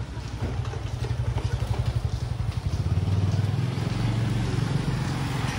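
A motorbike engine running, its rapid low throb getting louder over the first three seconds and then holding steady as it passes close.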